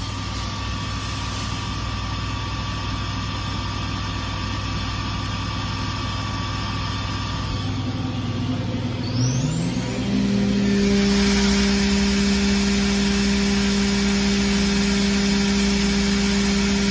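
Okuma MA-400HA horizontal machining center's CAT 40 spindle running unloaded: a steady whine over the machine's hum, which about nine seconds in sweeps quickly upward as the spindle accelerates. It then holds a higher, louder steady whine at the commanded 12,000 rpm.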